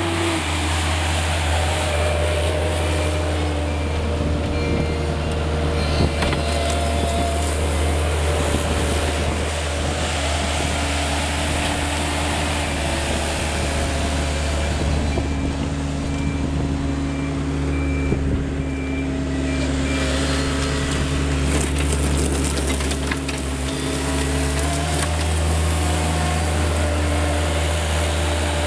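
Avant 640 compact loader's diesel engine running steadily while it works, its pitch shifting up and down a little as it manoeuvres. There are a couple of sharp knocks, one about six seconds in and one around eighteen seconds.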